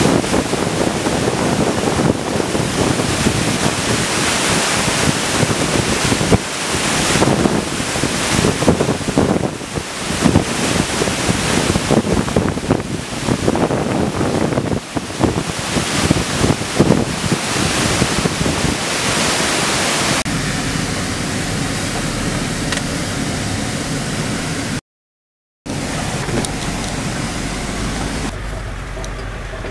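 Rupse waterfall in heavy flood: muddy water crashing down the rock face in a loud, dense, steady rush, with wind buffeting the microphone. About two-thirds of the way through, the rush turns steadier and thinner. A little later it drops out for under a second, then comes back.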